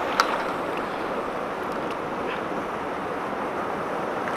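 Fast, turbulent river current rushing and churning around legs standing in the water, a steady wash. A single sharp click sounds just after the start.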